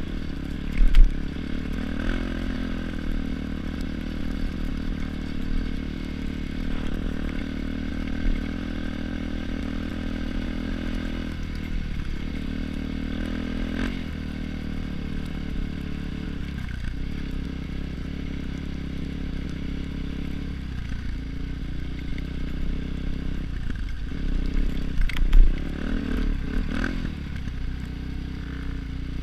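Motorcycle engine running steadily while the bike is ridden, with a few sharp knocks, the loudest about a second in and another near the end.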